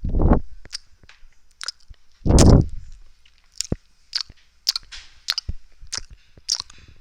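Close-miked ASMR mouth sounds: sharp, wet mouth clicks and lip smacks about one or two a second, with two louder, deeper bursts, one at the very start and one about two and a half seconds in.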